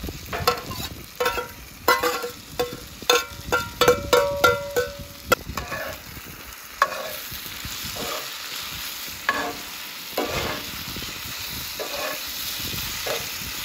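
Food sizzling in a hot cast iron pan as fish is tipped in and stirred, with a utensil knocking and scraping against the pan. Many quick ringing knocks come in the first five seconds or so; after that a steady sizzle runs on with only a few scrapes.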